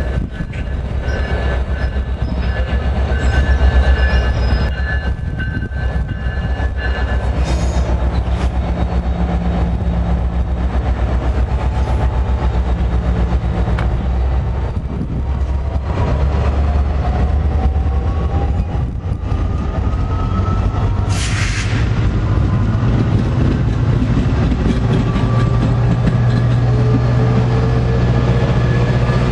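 NJ Transit commuter train of multilevel coaches rolling past, a steady heavy rumble of wheels on rail. A faint rising whine sets in about halfway through, a short hiss comes about 21 seconds in, and a low steady drone grows stronger near the end.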